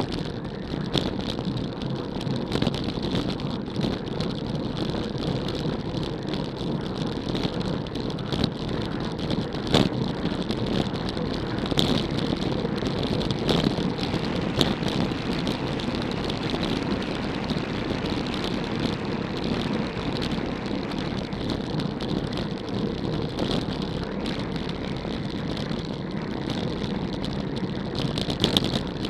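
Steady wind and road noise from a road bicycle riding at speed, heard through a handlebar-mounted camera's microphone, with a few sharp clicks.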